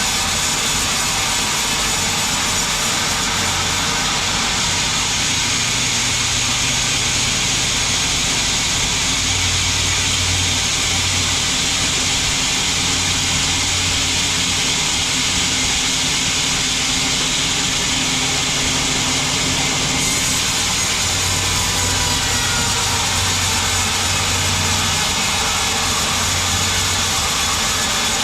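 Band sawmill running and cutting through a log: a loud, steady machine noise that does not break.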